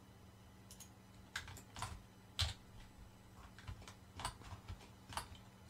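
Faint computer keyboard keystrokes: about eight short, scattered clicks over a faint steady hum.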